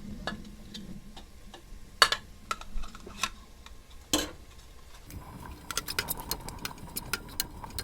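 A spoon knocking and scraping against a cooking pot while spices are added and stirred into a curry base. There are a few separate knocks, then a quick run of clicks over the last couple of seconds.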